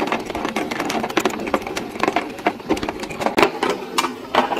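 Battery-powered toy fishing game running: its small motor turns the plastic pond, making a continuous, rapid, irregular plastic clicking and rattling.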